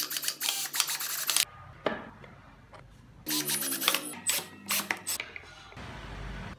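Carved wooden car parts knocking and rubbing against each other as they are handled and fitted together: two bursts of rapid wooden clattering, a couple of single knocks, then a soft hiss near the end.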